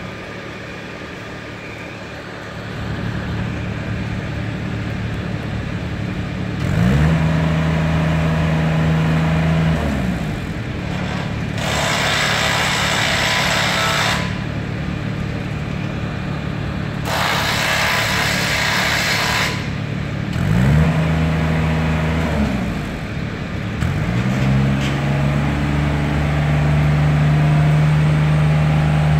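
Rough-terrain scissor lift's engine running steadily and revving up three times as the platform is raised: about a quarter of the way in, again about two thirds in, and a third time near the end, where it stays high. Two bursts of hissing, each a couple of seconds long, come in the middle.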